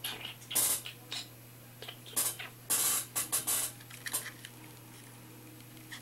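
Hands picking up and turning over a plastic wireless gaming mouse: a scattered string of short scrapes and clicks, busiest between about two and four seconds in.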